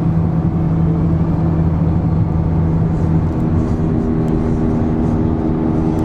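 Car engine and road noise heard from inside the cabin while driving, a steady hum whose engine note changes about three seconds in.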